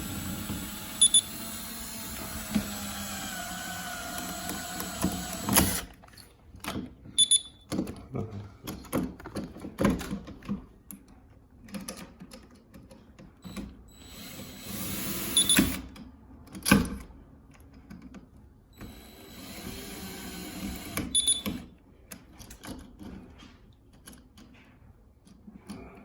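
Power drill-driver running in several spells as it backs out the screws of an old door handle set, its pitch shifting under load, with clicks and knocks of the metal hardware being handled in between.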